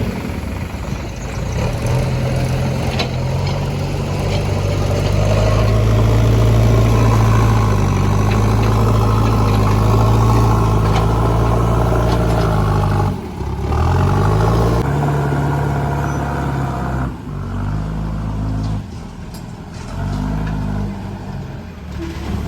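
Heavy diesel engine of earthmoving or farm machinery running steadily under load, its pitch dropping about 13 seconds in and climbing again, then revving up and down several times.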